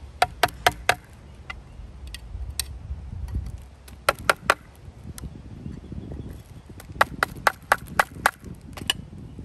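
Flat screwdriver tapping and clicking against the rusty steel retaining ring that holds the felt pad in an old Robbins & Meyers fan motor, while the ring is probed for its break. The taps come in short quick runs of three to six, a few a second.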